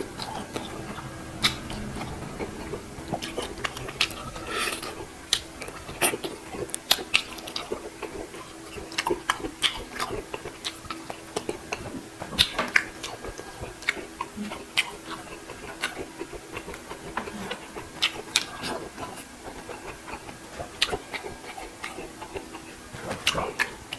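Close-miked eating: chewing and mouth smacks with many short, scattered clicks, over a faint steady hum.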